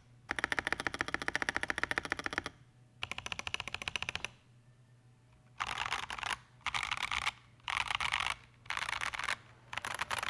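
Typing on a Skyloong GK61XS 60% mechanical keyboard with stock Boba U4T 62g tactile switches and MT3 keycaps, O-ring mounted with tape and silicone dampening. Fast runs of keystrokes in bursts, with a pause about halfway through.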